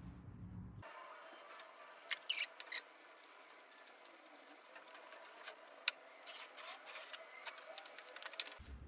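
Faint scratching and rustling with scattered light clicks and taps, a few of them sharper, about two seconds in and again near six seconds.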